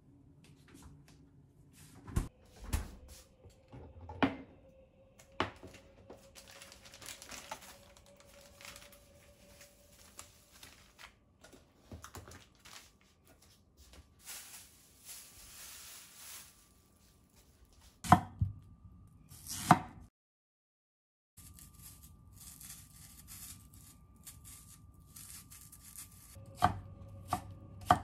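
Kitchen handling sounds: items knocked down on a counter and packaging rustling, then near the end a kitchen knife chopping nagaimo (Chinese yam) on a wooden cutting board, about two strokes a second.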